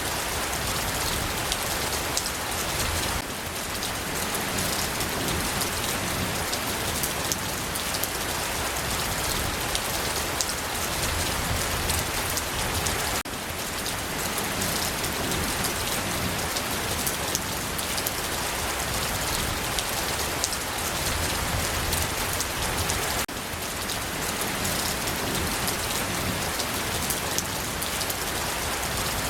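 Steady rain falling on a surface, an even hiss dotted with many small drop ticks. The level dips slightly and suddenly three times, about ten seconds apart.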